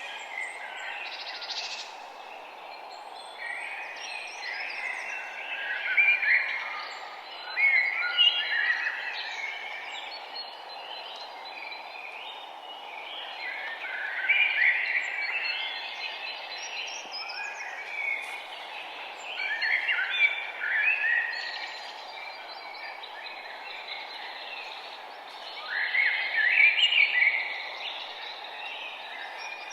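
Songbirds singing outdoors: bright, twittering song phrases recur every few seconds, with the loudest bursts about six, eight, fifteen, twenty and twenty-seven seconds in, over a steady low background hiss.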